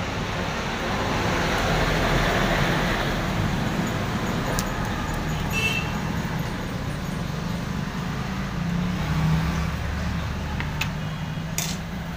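Steady road-traffic rumble and hiss, with a few light metal clicks as the brushes and brush springs are pulled from a 24 V starter motor's brush holder.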